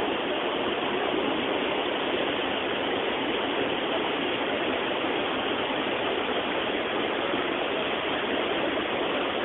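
Shiraito Falls' many streams of spring water, pouring out from between layers of rock, rushing in a steady, unbroken wash of water noise.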